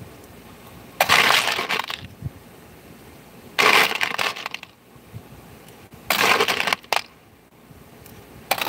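Small metal parts clattering together in a plastic bin as gloved hands scoop and sort through them: three rushes of clatter about a second long, and a fourth starting near the end.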